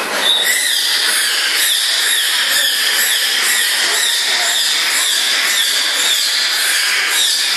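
A dolphin squealing in air with its head held out of the water: a steady run of short, high chirps, each falling in pitch, about two a second.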